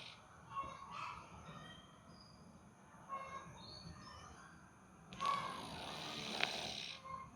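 A sleeping cat snoring loudly: one long, noisy snore starts about five seconds in and lasts nearly two seconds, after a quieter stretch between breaths.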